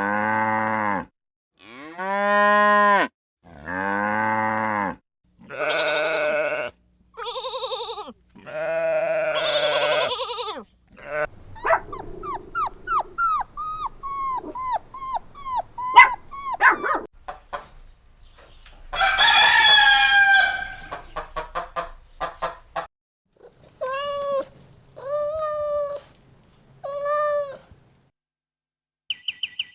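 Farm animal calls, one after another with short silences between: a run of six longer drawn-out calls, then a rapid string of short chirping calls, a louder harsher call, and four short calls near the end.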